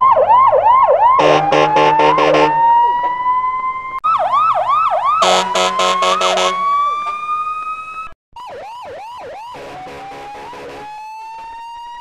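Police siren sound effect played three times in a row, each time a few quick yelping sweeps, a short horn blast, then a long slowly rising wail. The third one, after a brief break about eight seconds in, is quieter.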